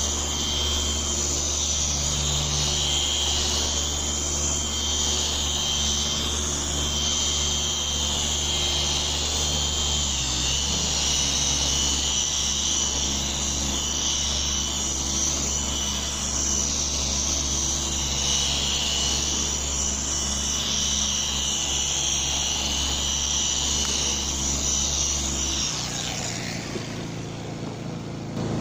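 Electric car polisher running steadily, buffing compound into wet-sanded paint to take out the sanding marks. Its whine drops and it stops near the end.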